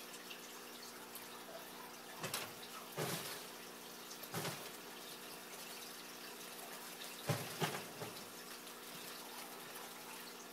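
A steady low electrical hum, with half a dozen short rustles and scrapes, the loudest about seven seconds in: a red-tailed boa's coils shifting over pelleted bedding as it constricts a rabbit.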